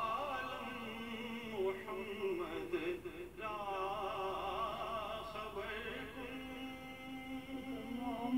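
Slow singing: a voice holding long notes that waver with strong vibrato.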